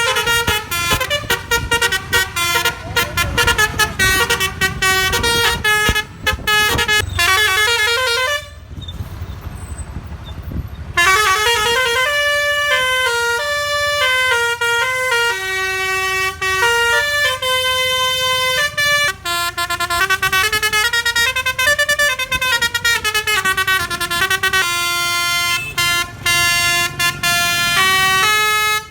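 Bus 'telolet' basuri musical air horn blown through roof-mounted trumpets, playing a fast tune of short stepped notes. It breaks off for about two seconds a third of the way in, leaving only a noisy rumble, then plays on in rising and falling phrases.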